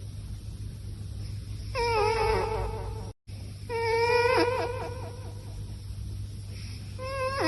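Sleeping cat making high-pitched, wavering whines, snoring-like sounds drawn out with its breathing, twice and starting a third time near the end. A brief dropout just after the second sound.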